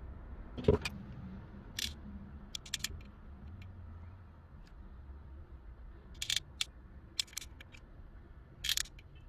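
Scattered light plastic clicks and taps from handling a plastic bottle cap, a syringe barrel and a hot glue gun, with a single knock about a second in as the loudest sound, over a low steady hum.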